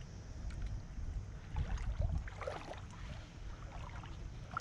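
Shallow seawater sloshing and splashing softly around someone wading and searching the water, over a steady low rumble.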